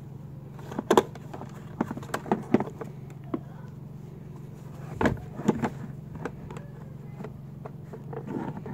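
Scattered clicks and knocks of a car's plastic fuel pump module being handled and taken apart, the sharpest about one second in and about five seconds in, over a steady low hum.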